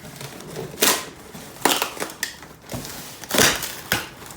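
Shipping packaging being forced open by hand: a few short bursts of crunching and ripping, the loudest about three seconds in.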